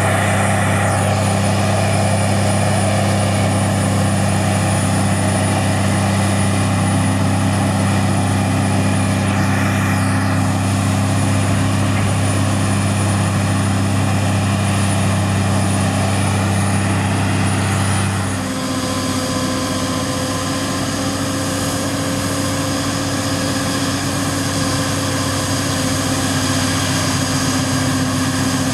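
John Deere 8800i self-propelled forage harvester chopping crop under load: a loud, steady machine drone with a deep hum and a thin high whine. About two-thirds through, the sound changes abruptly to a slightly quieter steady drone with a higher hum, from the tractor and trailer running close alongside the harvester.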